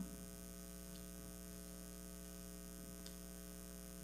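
Faint, steady electrical mains hum: a low buzz with a row of evenly spaced overtones, unchanging throughout.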